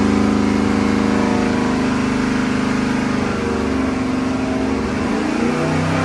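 Chevrolet 5.3-litre LS V8, carbureted on a dual-plane intake and running on E85, running loud under load on an engine dyno for a baseline power pull. Its pitch holds fairly steady, dips slightly about three seconds in and steps up near the end.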